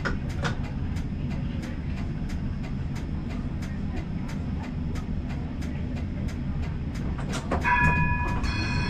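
Combino tram running, a steady low rumble with regular clicking about twice a second. A high ringing of several steady tones sets in near the end.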